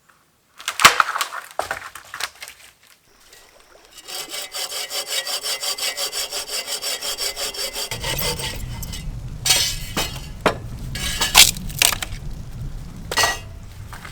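A hand saw cutting wood in quick, even strokes, about five a second, for about four seconds from a third of the way in. After the sawing stops come a steady low rumble and several sharp knocks and cracks.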